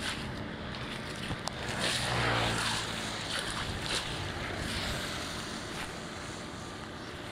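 Steady rush of floodwater draining and rain, swelling louder with a low rumble about two seconds in.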